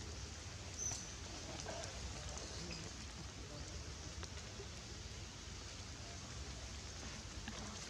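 Outdoor background with a steady low rumble, scattered faint clicks and a short high squeak about a second in, followed by a few faint chirps.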